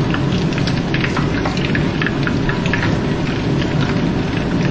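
Pot of broth at a rolling boil on the stove: steady bubbling with many scattered pops and a low rumble underneath.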